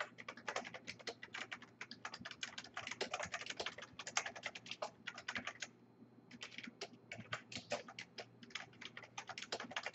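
Typing on a computer keyboard: a quick, irregular run of key clicks, with a short pause about six seconds in.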